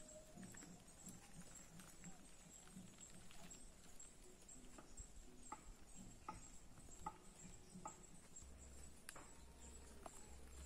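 Near silence: faint forest ambience, with a thin high steady tone pulsing evenly throughout and scattered soft clicks.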